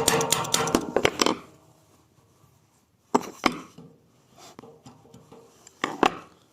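Background music with a rhythmic beat that stops about a second in, then a few sharp clicks and knocks: two about three seconds in and two close together near the end.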